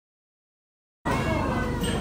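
Silence for about a second, then a sudden cut into restaurant dining-room sound: indistinct voices over a low steady hum.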